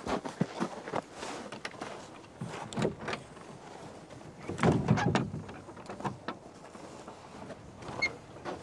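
Key and metal latch clicking and rattling in the lock of an old wooden door, then a louder knock and scrape about five seconds in as the door is pulled open.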